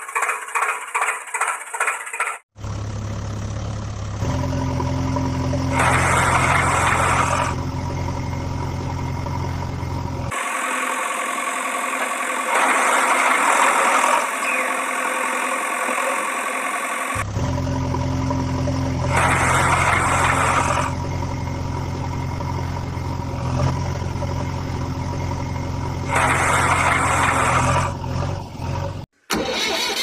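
Engine sound laid over toy tractors: a rapid rhythmic clatter for the first couple of seconds, then a steady diesel-style engine running, with louder surges every several seconds. For several seconds in the middle the steady engine hum drops out and only a rushing noise remains.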